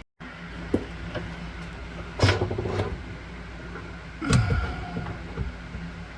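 Under-sink handling of a garbage disposal and its mounting hardware: two loud clunks with scraping, about two seconds in and again past four seconds, the second sliding down in pitch, over a steady low background hum.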